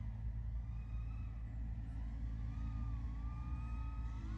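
Speedybee Bee25 2.5-inch cinewhoop's motors and propellers whining over a steady low rumble. The whine wavers in pitch with the throttle, dipping in the middle and rising again near the end.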